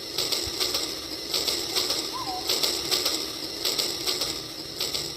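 Battery-powered Rail King toy train running along its track: a steady mechanical clatter that pulses about two to three times a second.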